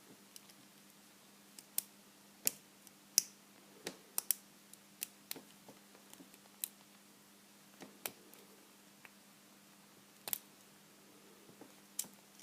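Lock pick clicking and scraping against the pins inside a vintage Corbin pin tumbler padlock: irregular small, sharp clicks, some close together, over a faint steady hum.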